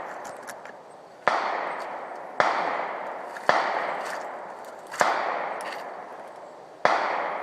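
A series of five gunshots, one every second or so. Each is a sharp crack followed by a long fading echo.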